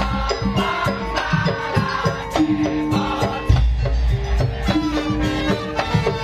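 Instrumental music in a traditional folk style: held melodic notes over a steady beat of drums and rattling percussion such as tambourine or shakers.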